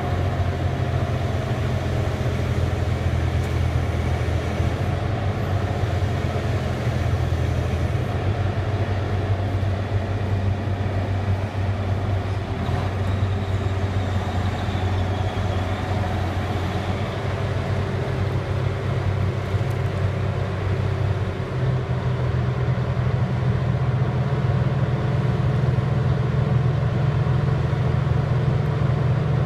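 Diesel engine of a Liebherr 964 crawler excavator running steadily under load as the machine tracks over the end of a lowbed trailer; the engine note rises slightly about two-thirds of the way through.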